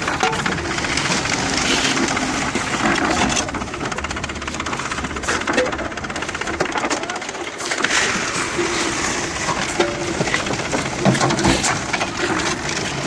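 Construction site work noise: a dense clatter of metallic clinks and scraping over a steady noisy background, with faint voices.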